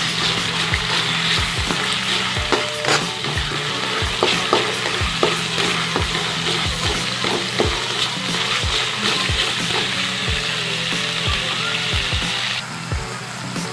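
Chopped onions and shrimp paste sizzling in hot oil in a wok, with a spatula stirring and scraping against the pan. The sizzle drops off suddenly about a second before the end.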